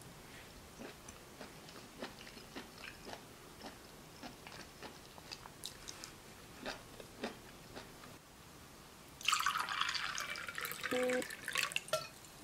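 Light clicks of chopsticks against a plate, with quiet chewing. About nine seconds in, red wine is poured into a glass: a splashing stream lasting about three seconds.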